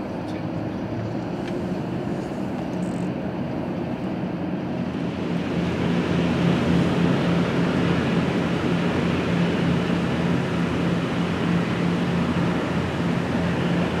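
Steady mechanical rumble with a low, even hum, growing louder about five seconds in and then holding.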